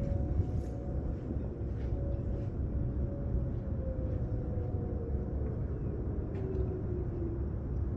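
Distant ExxonMobil Whelen outdoor warning sirens, heard faintly over a steady low rumble. The siren holds a steady tone, then slides lower in pitch over the last few seconds as it winds down.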